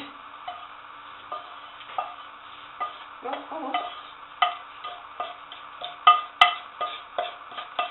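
Slotted spatula scraping and knocking against a frying pan as chopped fried almonds are pushed out of it: short, irregular scrapes and taps, the sharpest knock about six and a half seconds in, over a faint steady hum.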